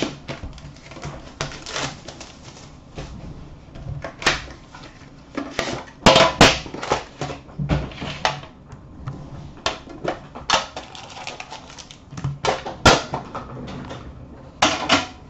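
A sealed trading card box being opened and handled by hand: cardboard and wrapper rustling, with scattered taps and knocks as the box and its contents are set against the counter and bin, louder clatters about six seconds in, near thirteen seconds and just before the end.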